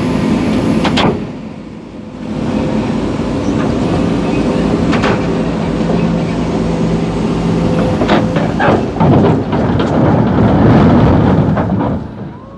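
Sumitomo excavator's diesel engine running steadily, with sharp metallic knocks now and then. A louder, rougher stretch of knocking and rattling comes near the end.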